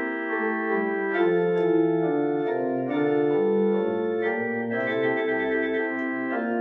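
Pipe organ playing sustained chords that move from one to the next every second or so, with a deep pedal note sounding briefly about five seconds in.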